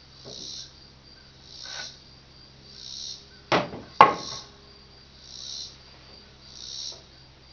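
Two sharp hammer blows on wood about half a second apart, near the middle, over a steady low hum and a high hiss that swells and fades about once every second and a bit.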